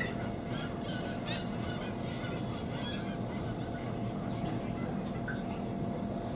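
Gulls calling in many short, overlapping cries, busiest in the first three seconds and thinning out after, over a steady low hum.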